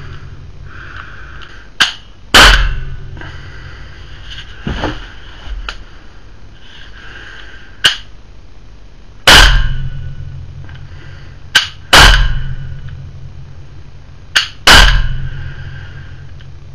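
Umarex NXG PS 100 CO2 pistol with a carbine conversion kit and barrel-extension mod firing four shots of coated steel and rubber balls, each a loud sharp pop that dies away over about a second. A shorter, sharp click comes a moment before most of the shots.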